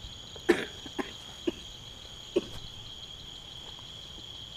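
Steady, high-pitched chorus of night insects, with four short, sharp sounds in the first two and a half seconds, the loudest about half a second in.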